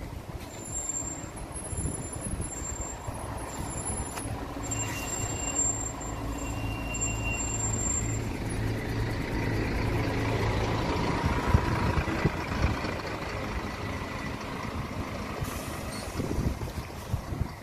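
Diesel engine of a double-decker bus running as the bus drives slowly past at close range, with short high-pitched squeals in the first half. The engine gets louder around the middle as the bus goes by.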